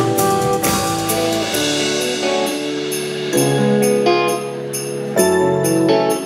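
Live pop band playing the instrumental ending of a song without vocals: keyboard chords held and changing every second or so, over a steady drum beat.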